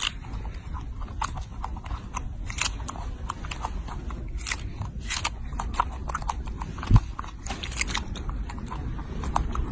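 Baby macaque biting and chewing a strawberry: irregular wet smacks and crunches, with one low thump about seven seconds in, over a steady low rumble.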